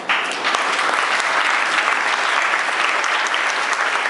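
Applause from a large audience of schoolchildren: many hands clapping at once, starting suddenly and then going on steadily.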